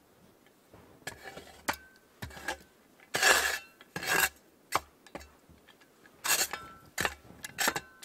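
Coghlan's folding steel survival shovel working in snow: a string of irregular short scrapes and chops, with light metallic clinks from the blade and hinge.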